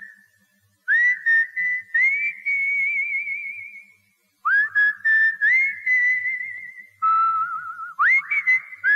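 A person whistling a tune in short phrases, each note scooping up into pitch and some held notes warbling, with brief pauses between phrases. A faint low beat sits underneath.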